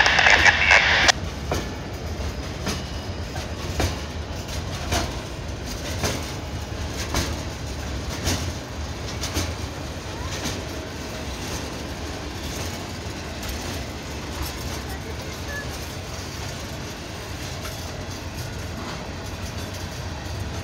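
Freight cars rolling past at close range: a steady low rumble, with the wheels clicking over rail joints about once a second. A loud hiss cuts off about a second in.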